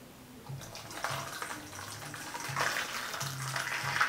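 Boiling water pouring from an electric kettle onto tomatoes in a stainless steel bowl: a steady splashing stream that starts about half a second in and grows a little louder.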